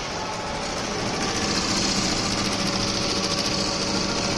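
Vidya sewing machine running, stitching with a fast, steady rhythm that picks up a little about a second in.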